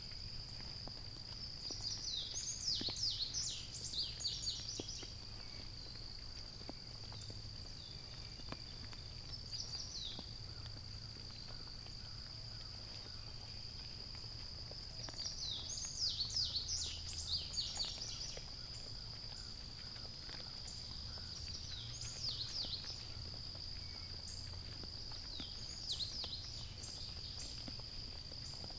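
Steady high-pitched insect chorus of crickets, with a songbird singing several bursts of quick falling notes a few seconds apart, the longest about two seconds in and again in the middle.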